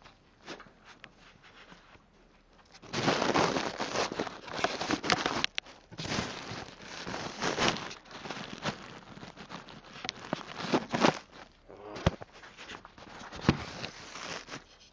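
Crackly rustling and rubbing on the microphone as the phone is handled, in irregular bursts starting about three seconds in, with scattered sharp clicks.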